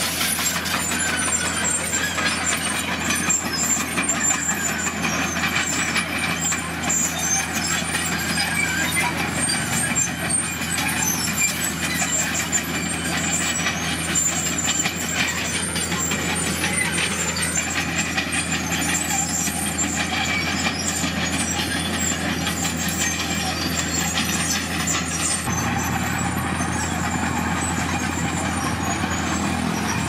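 Komatsu D41PX crawler bulldozer's diesel engine running steadily under load as its blade pushes crushed stone. The sound shifts abruptly about 25 seconds in.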